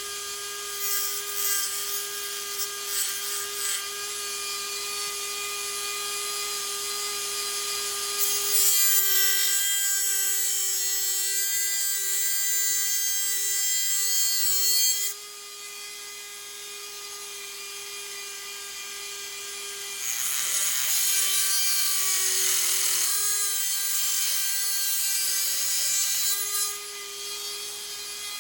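Dremel rotary tool running steadily with a high whine while grinding a metal package-opener blade to shape. Twice, for several seconds at a time (about a third of the way in, then again past two-thirds), the bit is pressed harder into the metal and a harsh grinding hiss rises over the whine, and the motor's pitch dips briefly under the load.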